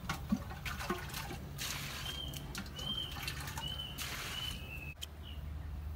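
Water pouring from a clay water jar and splashing into a metal basin in two spells, after a few light knocks as the jar's lid is handled. A bird repeats a short chirp about six times over the pouring.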